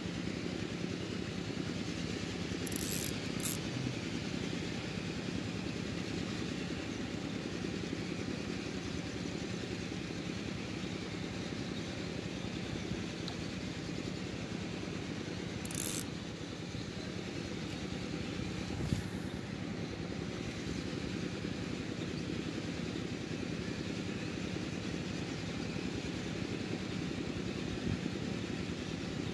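Steady rushing of a shallow stream over stones, with a few short sharp clicks, two about three seconds in and two more around sixteen to nineteen seconds in.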